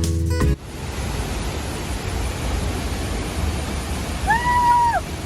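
Strummed guitar music cuts off about half a second in, leaving a steady rushing noise. Near the end, one short high call rises, holds and falls.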